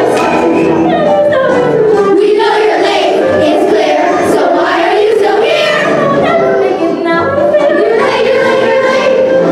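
A chorus of children singing a song together with music, the voices carrying steadily without a break.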